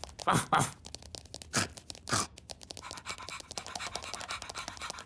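Cartoon ladybird scurrying with a slipper in its mouth: a fast run of light clicking and scratching from its legs, with four short sounds that swoop down in pitch in the first couple of seconds.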